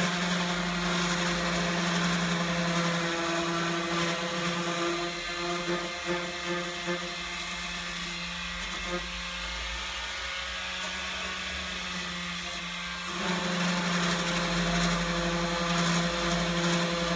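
Electric hand sander running steadily as it rough-sands the old finish off a wooden cabinet, a constant motor hum with a rasping scrub over the wood. It is quieter for several seconds midway and louder again near the end.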